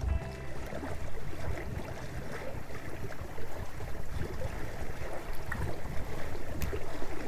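Water rushing and slapping along the hulls of a small sailing trimaran under way, in uneven surges.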